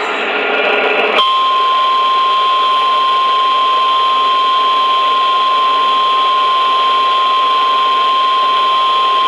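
About a second of harsh static-like noise, then a single steady high tone near 1,000 Hz that holds unbroken: the NOAA Weather Radio 1050 Hz warning alarm tone, which signals that an urgent warning follows.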